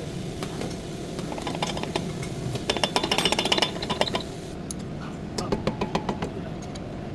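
Metal tools and parts clinking and knocking during work on a car's rear brake, over a steady low hum. Just under three seconds in comes a quick run of rapid metallic knocks with a ringing clink, then scattered clicks.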